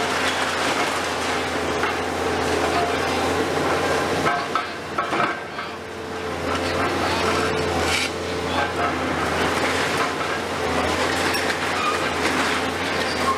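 Komatsu PC490 long-front demolition excavator working, its diesel engine and hydraulics giving a steady drone, with irregular crunching and clattering as the demolition tool breaks concrete and rubble falls.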